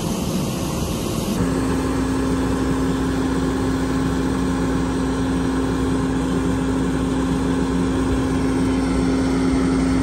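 John Deere combine running with its unloading auger emptying corn into a grain cart. After about a second and a half the sound cuts to a steady engine hum with one constant low tone.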